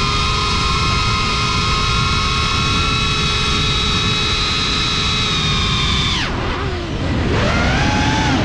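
Cinelog 35 FPV quadcopter's brushless motors and propellers whining at a steady pitch over a low rumble. About six seconds in the throttle is cut and the whine falls steeply in pitch and level. About a second later it rises again as the throttle comes back up.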